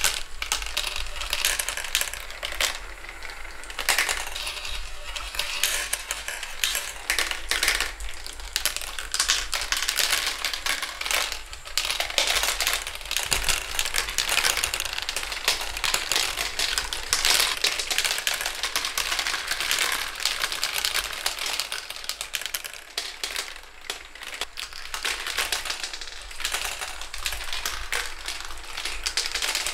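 Marbles rolling and clattering through a motorized plastic marble run: a dense, continuous rattle of small clicks as they drop through tubes and funnels and roll along the tracks.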